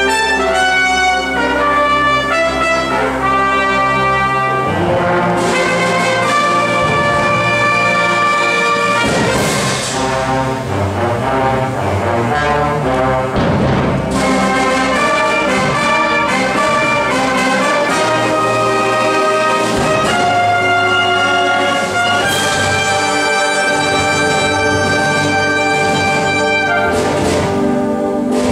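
High school concert band playing live, trumpets and other brass prominent over sustained wind chords, with a few accented full-band hits.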